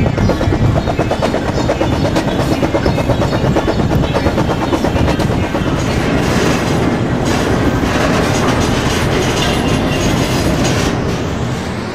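Freight train rolling along the track, a loud, steady running noise.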